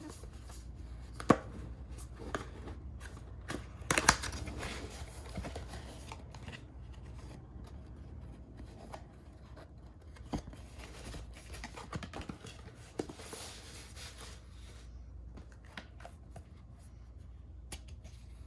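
A watch box and its packaging being handled and opened: scattered clicks and knocks with rustling of cardboard and paper. The sharpest knocks come about a second in and around four seconds in.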